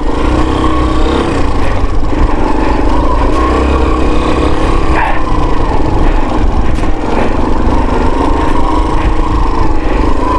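Dirt bike engine running steadily under way, with low rumble from wind on the microphone.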